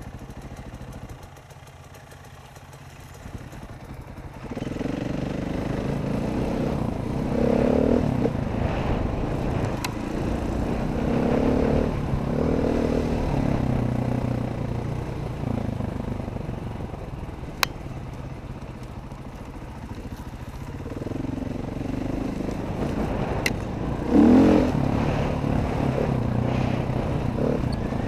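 Dirt bike engines running and revving up and down while riding, quieter for the first few seconds and then louder from about four seconds in. Two sharp clicks stand out in the second half.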